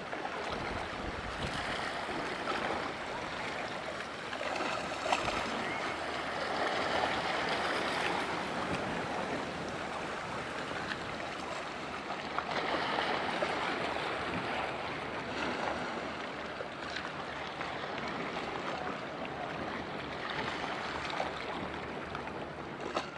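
Small waves washing on the shore: a steady rushing wash that swells and eases.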